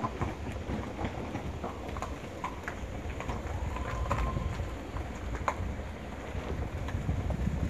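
Steady low outdoor rumble with scattered light clicks and taps, and a brief faint steady tone about four seconds in.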